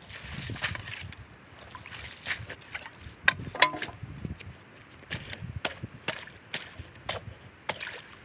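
Slush and broken ice sloshing as it is scooped out of a freshly cut hole in lake ice. In the second half, a series of sharp, separate strikes, about one or two a second, as the ice is chopped at with a spiked wooden ice chisel.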